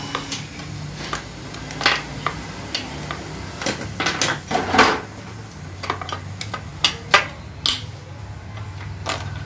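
Metal hand tools and loose parts clinking and knocking irregularly against an automatic transmission casing as its oil-filter housing is being unbolted. The loudest cluster of knocks comes about halfway through, and a low steady hum runs underneath.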